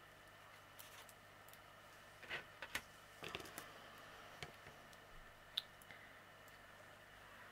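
Faint, scattered small clicks and taps of small plastic mosaic-kit pieces and their packets being handled, a few close together about two to three and a half seconds in and a sharper single click near the middle.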